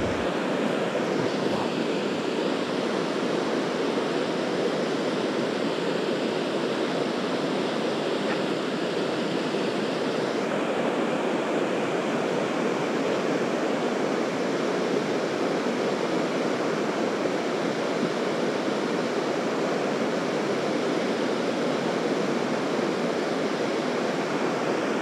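Steady rushing of flowing water, even and unbroken, with a thinner high hiss over it that stops about ten seconds in.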